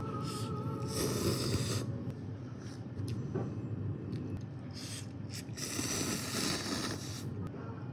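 A person slurping instant noodles, noisy sucking draws about a second in and again from around five to seven seconds in.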